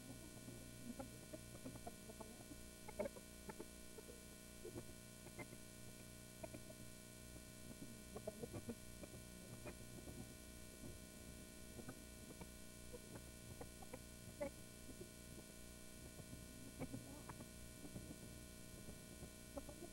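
Near silence: a faint steady electrical hum on the recording, with scattered faint, brief sounds.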